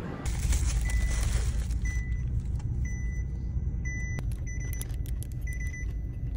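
Low rumble inside a car's cabin, with the car's warning chime beeping about once a second. A plastic bag rustles during the first two seconds.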